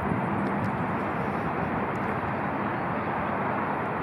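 Steady outdoor background noise: an even, unbroken hiss and rumble with no distinct events.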